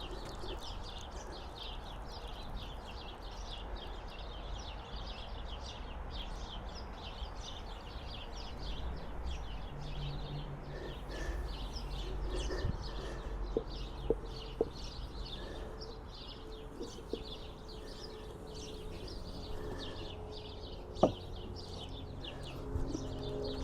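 Steady, rapid chirping of birds over a low rumble, with a few light metal clinks in the middle and one sharper clink near the end.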